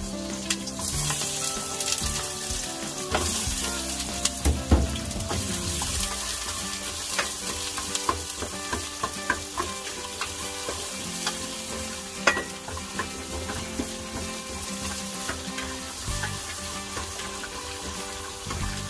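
Carrot and onion sizzling in hot oil in a pan while being stirred, with the stirring utensil now and then clicking sharply against the pan.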